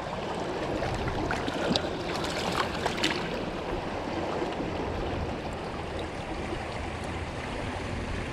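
Small, fast-flowing trout river rushing steadily over stones in the shallows. A few brief clicks and light splashes come between about one and three seconds in, as a trout is handled in a landing net in the water.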